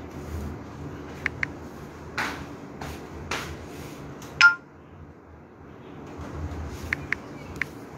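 A single sharp, bright ping about four and a half seconds in, ringing briefly, with a few faint ticks before and after it over a low steady hum.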